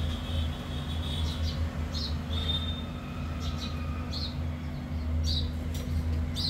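Puri deep-frying in hot oil in a karahi: a steady sizzle with scattered sharp crackles and pops, over a constant low hum.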